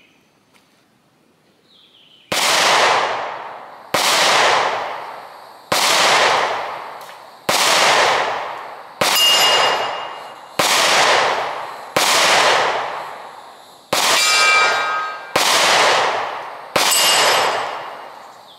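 Ten shots from a SIG Sauer P365 9 mm micro pistol, fired at a steady pace about a second and a half apart, the first about two seconds in. Each report dies away over a second or so, and a metallic ring follows a few of them.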